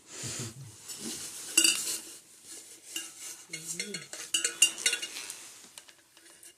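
Rustling and scattered light clicks and taps of a small puppy being handled during a chiropractic adjustment.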